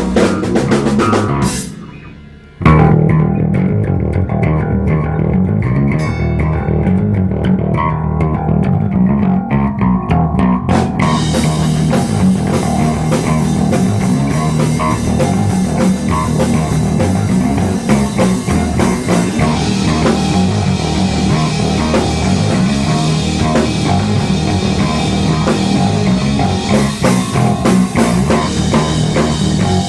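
Rock band playing: bass guitar, guitar and drums. The music drops away briefly about two seconds in, comes back in loud, and the cymbals fill out from about eleven seconds on.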